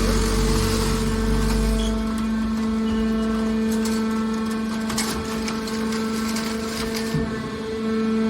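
Hydraulic aluminium can baler running: a steady hum from its motor-driven hydraulic pump, with a heavier low rumble that eases off about two seconds in and a few sharp clicks near the middle.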